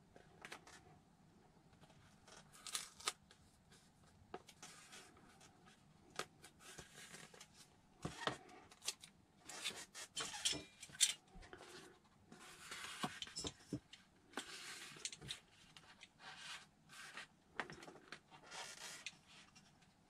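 Craft knife drawn along a steel ruler, slicing through glider foam in repeated slow strokes: a series of faint, irregular scratchy rasps with a few sharp clicks of the blade and ruler, busiest in the second half.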